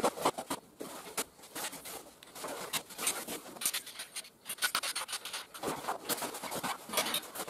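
Folding camping cot being taken apart: the synthetic bed fabric rubbing and rustling as it is pulled off the frame, with many sharp clicks and knocks from the metal pole sections being handled and collapsed.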